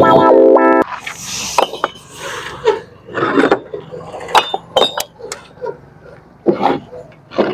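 Fired clay bricks knocking and clinking against one another and against a wooden cart bed as they are lifted and set down, with a few short scrapes. A short stretch of music ends less than a second in.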